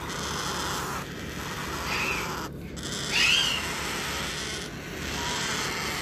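Parrot chicks begging while being hand-fed formula from a syringe: raspy, hissing food calls in stretches of about a second, with a short squawk about two seconds in and a louder one just after three seconds.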